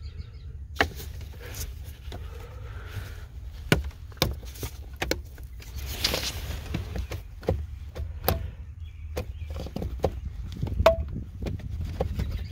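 Irregular plastic clicks and knocks from a car's glove box and its trim being handled and adjusted, with two sharper knocks, about four seconds in and near the end, over a steady low rumble.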